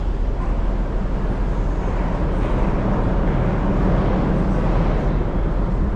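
Tour boat's engine running with a steady low rumble as the boat passes beneath a steel bridge.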